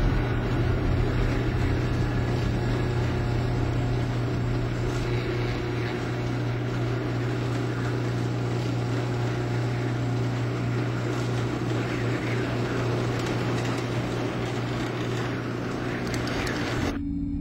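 A steady, low machine-like hum with a hissing rumble over it, a sci-fi soundtrack drone. Near the end the rumble cuts off and a different steady hum at a higher pitch takes over.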